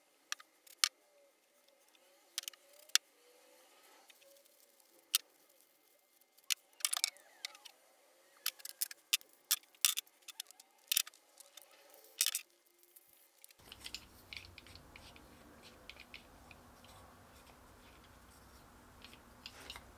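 Small wooden clamp parts and metal T-bolts being handled, picked up and set down on a plywood workbench: scattered sharp clicks and knocks, busiest in the middle. About two-thirds of the way through a faint steady hiss comes in, with lighter clicks as a bolt and star knob are fitted into a clamp.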